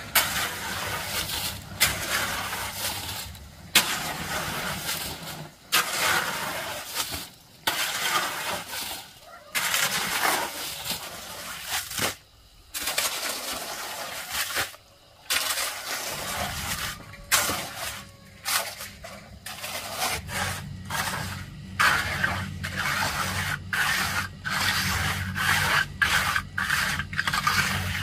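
Repeated rough scraping strokes, each under two seconds with short pauses between, coming quicker and shorter in the second half. A low steady hum joins after about sixteen seconds.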